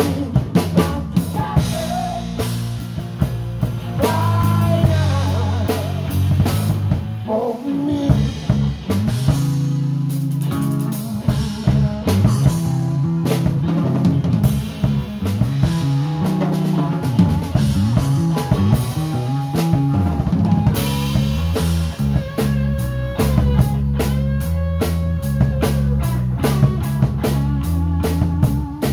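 Live rock band playing with a full drum kit, bass and electric guitar, the guitar's held notes bending up and down over a steady beat.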